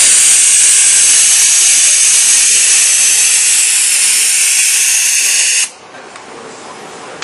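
Steady, loud hiss of compressed air from the pneumatic line of a robot arm's gripper. It cuts off abruptly about five and a half seconds in, around when the block is set down, leaving only a faint background noise.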